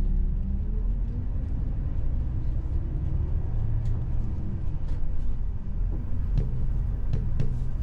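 Low, steady rumble of a moving vehicle, with a motor tone rising in pitch partway through and scattered light clicks and rattles.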